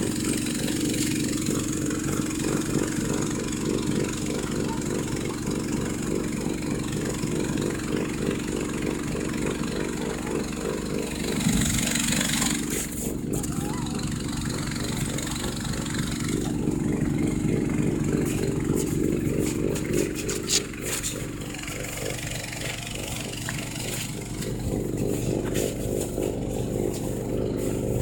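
Snowblower engine running steadily, with a brief louder rush about eleven to twelve seconds in and a few sharp clicks around twenty seconds.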